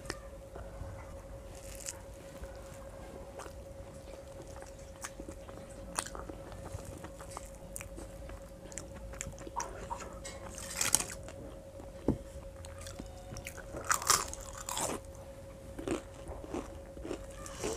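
Close-up eating sounds of khichuri eaten with the fingers: mouth chewing and biting noises and fingers working the rice on the plate, with scattered small clicks. A few louder, crunchier bites come in the second half. A steady faint hum runs underneath.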